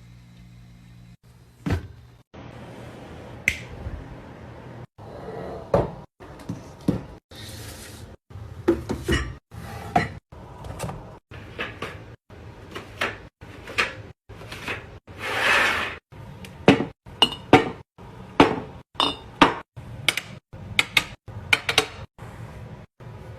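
Food containers and jars being handled and set down while a fridge is restocked: a rapid run of clinks, taps and knocks, broken by many abrupt cuts.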